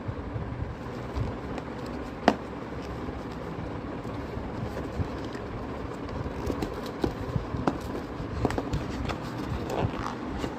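Smartwatch box and packaging being opened and handled by hand: scattered light clicks and taps, with one sharper tap about two seconds in, over steady background noise.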